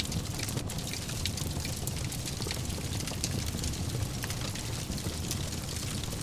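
Fire burning in a fireplace: a steady low rumble with frequent small crackles and pops.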